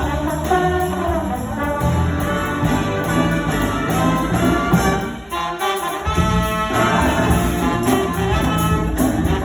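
High school jazz big band playing, with the brass section of trumpets and trombones out front over a steady bass line. A little past halfway the band breaks off for under a second, then comes back in.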